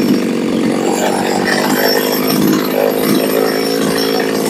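Small two-stroke G2550 top-handle chainsaw engine idling steadily at a low pitch, settled after a rev.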